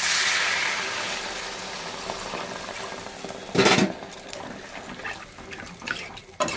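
Water poured into a hot kadai of spice paste fried until the oil has separated, hissing loudly at first and dying down over a few seconds. A short louder burst comes about three and a half seconds in, then a metal spatula stirring and scraping the pan.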